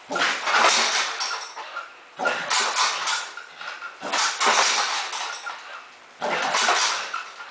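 Bowflex home gym clattering and rattling as a dog yanks on a rope tied to its springing power rods: four sudden loud bursts about two seconds apart, each dying away before the next pull.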